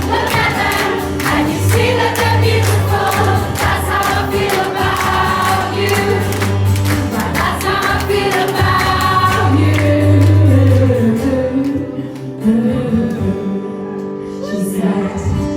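Live band music with singing. The bass stops about eleven seconds in and the music thins out and gets quieter.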